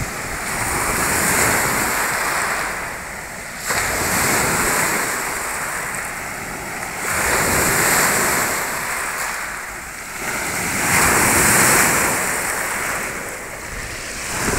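Black Sea waves breaking on a pebble beach, the surf swelling and falling about four times, every three to four seconds.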